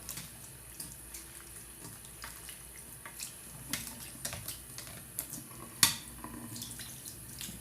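Water running from a tap into a sink to rinse a doll's hair, with scattered light knocks and one sharper knock about six seconds in.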